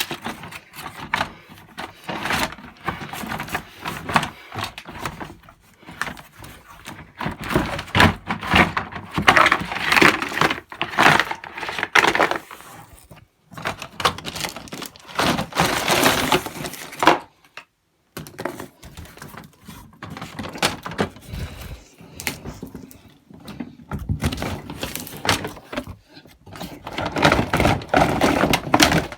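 Pieces of a plastic toy train set being taken out of their box by hand: irregular clattering, knocking and rustling in uneven bursts, with a couple of short pauses.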